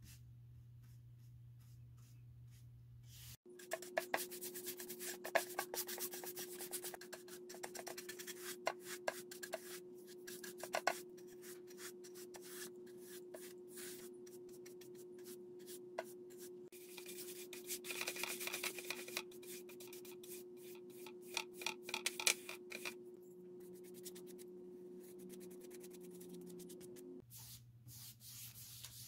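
A paintbrush worked over painted wood: repeated scratchy rubbing strokes of the bristles against the surface, with a faint steady hum behind.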